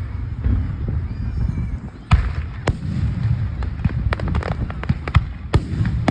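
Fireworks going off: a low rumble of booms with sharp bangs and crackling pops. The loudest bang comes about two seconds in, followed by a quick run of cracks.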